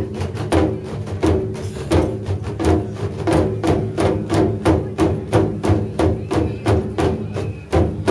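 Taiko drums played as an ensemble: wooden sticks strike the drumheads in a steady, driving rhythm of about two to three beats a second, and the drums ring between strokes.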